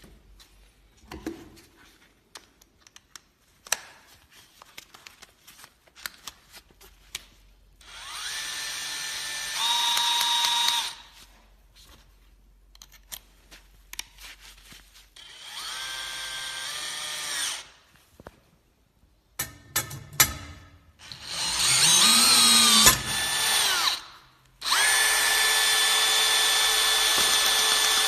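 Power drill driving a Sigma BR7 pop-rivet drill adapter in four runs of a few seconds each, its motor whine stepping in pitch within some runs. Light clicks and handling knocks come first.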